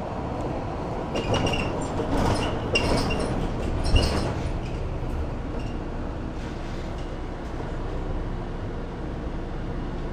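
City bus running, heard from inside the cabin: a steady engine and road rumble, with a spell of rattling and clinking from about one to five seconds in and a sharp knock around four seconds in.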